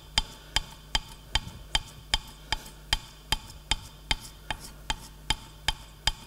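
Steel chisel worked back and forth on abrasive sheet over a glass plate, with a sharp click at each stroke in a steady rhythm of about two and a half a second.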